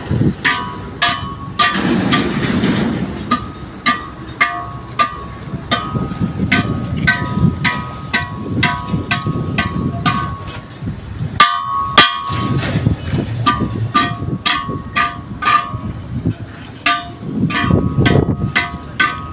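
Steel tyre lever striking a rusty steel truck wheel rim again and again, about two to three clanks a second, each with a short bell-like ring. There is a brief pause a little past the middle.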